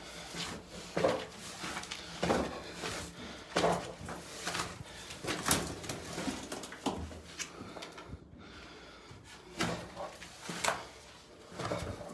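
Footsteps going down a tight spiral staircase, with irregular knocks and scuffs roughly one step a second. They pause for a couple of seconds past the middle, then carry on.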